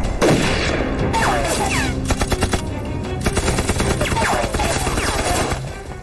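Gunfight: pistol shots and other gunfire in quick succession, over a background music score.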